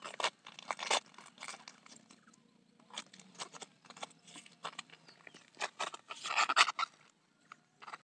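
Fibrous layers of a rotting banana trunk being torn apart by hand: a run of short crackling tears and snaps, with a louder, denser cluster about six and a half seconds in.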